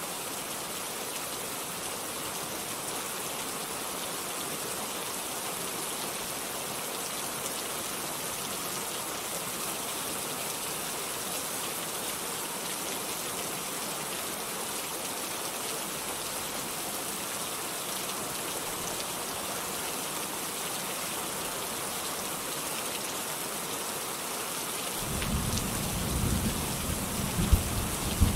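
Steady heavy rain hissing evenly. In the last few seconds a low, uneven rumbling sets in, with a couple of sharp jolts.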